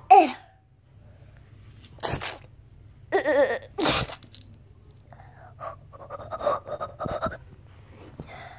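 A child sneezing twice, about two seconds in and again about four seconds in, the second sneeze led by a short wavering "ah". Faint voice sounds follow.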